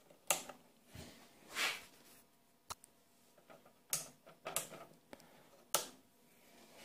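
Handling noise: several sharp, scattered clicks and knocks, with a short soft rustle about a second and a half in, as equipment is moved while the PDR light is repositioned.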